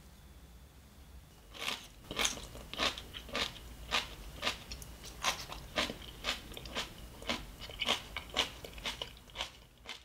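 Someone chewing a mouthful of crisp seasoned soybean sprouts, with sharp crunches about twice a second starting about a second and a half in.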